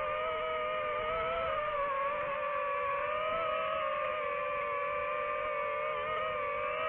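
Quadcopter drone motors and propellers whining steadily in flight, the pitch wavering slightly as the motors adjust.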